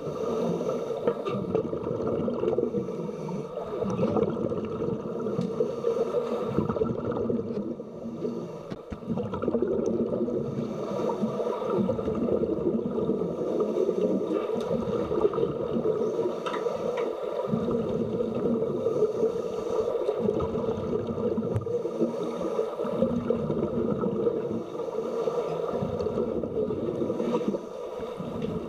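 Underwater ambience in a swimming pool: a steady hum with the gurgle of scuba divers' exhaled bubbles from their regulators.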